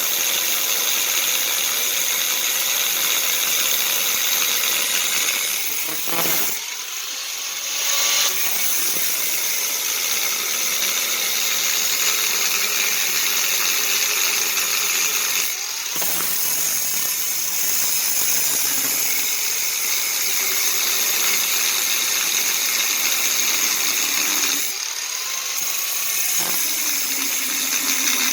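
An electric power tool runs steadily on metal axle parts, with a whine at fixed pitch. It stops or breaks off briefly three times.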